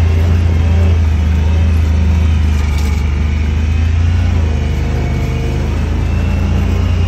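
Honda Pioneer 1000-5 side-by-side's parallel-twin engine running at a steady low drone while driving slowly along a dirt trail, heard from inside the cab. The drone eases off slightly about two-thirds of the way through.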